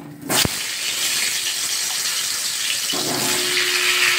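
Salted raw potato slices dropped into hot oil in an aluminium kadai: a clack as they hit the pan about a third of a second in, then a steady high sizzle of frying. It grows louder after a second knock about three seconds in.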